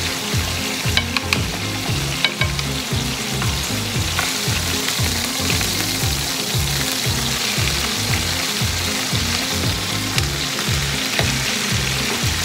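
Butter and olive oil sizzling in a frying pan while a thick bone-in steak is basted with a spoon and turned over about halfway through. A few sharp clicks of metal utensils against the pan come in the first few seconds. A low, regular beat runs underneath.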